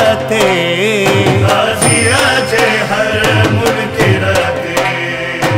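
A Sindhi devotional manqabat: a male voice sings long, ornamented lines over a steady hand-drum beat and instrumental backing.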